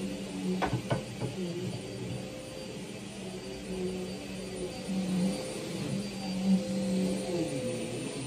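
Steady whirring hum of a running ceiling fan, with two sharp taps a little under a second in.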